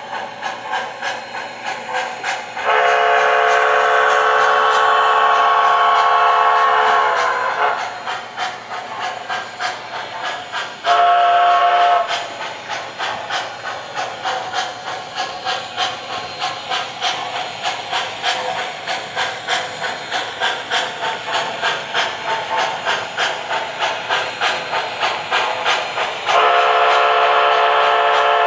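MTH Premier O-gauge Jersey Central camelback 4-6-0 model locomotive's Proto-Sound 2 sound system playing steady rhythmic steam chuffing as the model runs. Over it sound a long multi-tone whistle blast a few seconds in, a short toot about eleven seconds in, and another long blast near the end.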